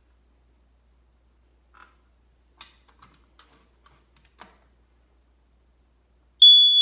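A few faint clicks and taps, then, near the end, a smoke alarm's horn sounds a loud, high, single-pitched beep that starts abruptly when it is set off for a test.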